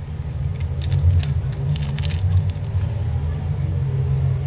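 A rubber band and paper tape are pulled off a phone by hand: a run of short crackles and rustles in the first few seconds, over a steady low rumble.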